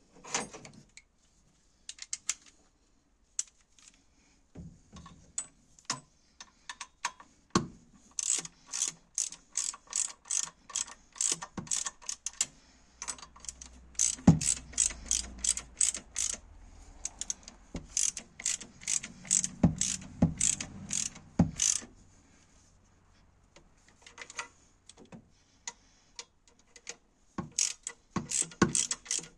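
Hand ratchet wrench clicking in quick, even strokes as fasteners in a VW T4 1.9 TD engine bay are turned, with a few heavier knocks of metal. A long run of clicking stops, and after a pause of several seconds it starts again near the end.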